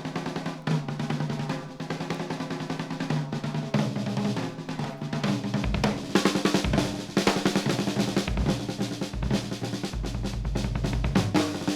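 Jazz drum kit played fast and densely, with rapid snare strokes and rolls and heavy bass drum hits growing stronger in the second half. Low pitched notes shift underneath.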